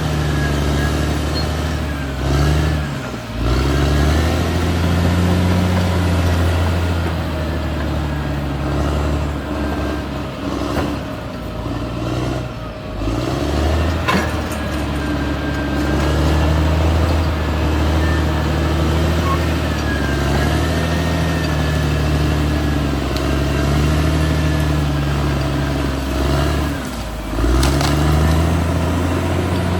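Caterpillar D6R XL bulldozer's diesel engine running hard and steady, its pitch dipping briefly and recovering about three seconds in and again near the end.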